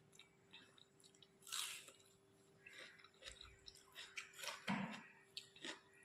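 Close-miked chewing of rice with fish curry: soft wet smacks and small mouth clicks at an uneven pace, with louder bites about a second and a half in and again near the five-second mark.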